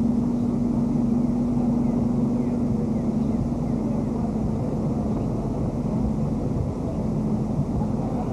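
A steady low drone with a rumbling noise beneath it, holding one pitch and easing off slightly in the second half.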